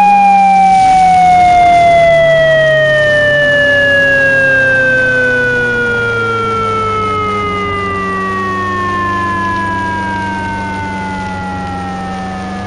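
Synthesized Japanese police motorcycle siren winding down: one long wail falling slowly in pitch and fading, over a low steady hum.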